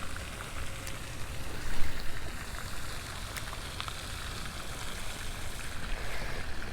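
Steady rushing water with a few faint clicks and a brief louder moment about two seconds in.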